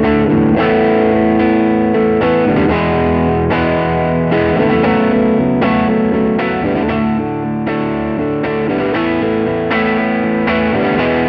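Electric guitar through a Bad Cat Siamese Drive overdrive pedal and a Peavey Classic 50 4x10 amp, playing a repeating phrase of overdriven chords. A new chord is struck every half second to a second while a knob on the pedal is being turned.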